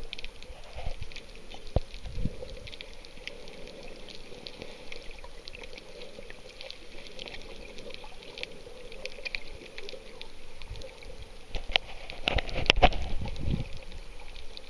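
Underwater audio from a snorkeler's camera: muffled water noise scattered with small clicks and crackles. It grows louder near the end with bubbling and splashing water.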